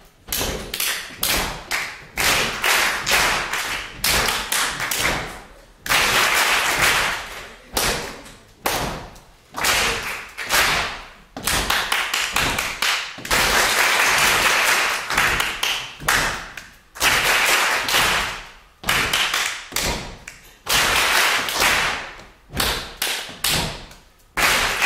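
Hand clapping in call and response: one person claps short rhythms and a roomful of people claps them back. The claps come in groups of a second or two with short gaps between, some groups thick with many hands at once.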